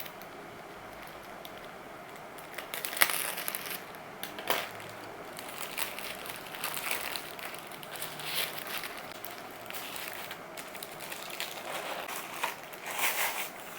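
A parcel's packaging being torn open and handled by hand: irregular rustling and crackling that starts about three seconds in and goes on in fits.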